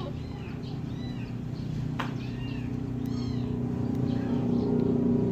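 Very young kittens mewing: about five short, high-pitched calls that rise and fall. A low steady rumble grows louder toward the end.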